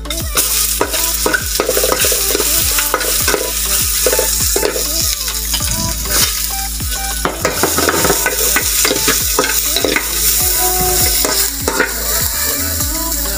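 Sliced ginger sizzling in hot oil in an aluminium pot, the sizzle starting suddenly as it goes in, while a metal ladle stirs it.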